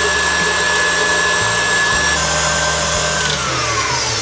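KitchenAid stand mixer running fast, its whisk beating egg whites to stiff peaks: a steady whirr with a high whine. About two seconds in the whine drops a step, and after about three seconds it falls away as the motor is switched off and winds down.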